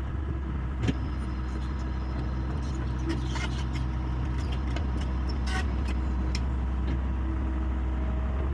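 Hyundai 85A excavator's diesel engine running steadily, with a sharp knock about a second in and a scatter of short clicks and knocks in the middle, as the machine works earth.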